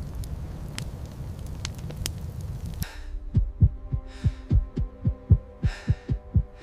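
Low rumbling noise with scattered sharp crackles, then about three seconds in it cuts to a fast heartbeat sound effect, thuds coming in quick pairs over a steady low drone, with two short breathy hisses.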